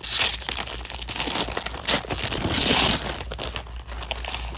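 A foil-plastic trading card pack wrapper being torn open and crinkled by hand, in a run of crackling rustles with louder bursts near the start and about two to three seconds in.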